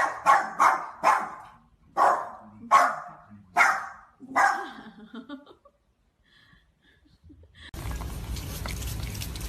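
A dog barking, about eight sharp barks in the first four and a half seconds, some in quick pairs, then stopping. A steady background hiss takes over near the end.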